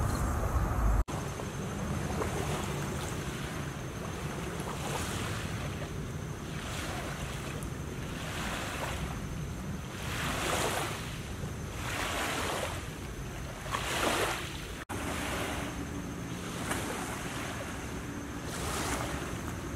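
Small river waves lapping against the bank, swelling about every two seconds, with wind on the microphone.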